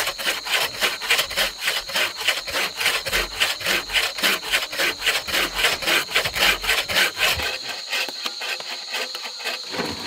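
Frame (buck) saw with a wooden frame cutting through a mossy log in rapid, even back-and-forth strokes. The strokes grow lighter over the last couple of seconds and stop just before the end. A steady high insect drone runs underneath.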